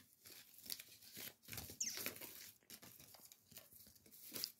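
Faint rustling and light clicking of small fidget toys and cardboard packaging being handled, with a short high scrape about two seconds in.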